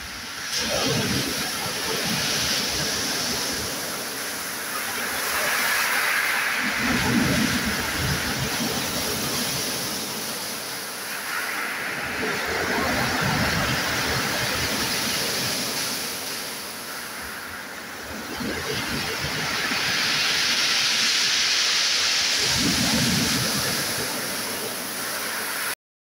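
Sea waves breaking on a pebble beach and around steel pier piles, each wave crashing in and washing back with a hiss. The surf swells and eases in surges about every six seconds.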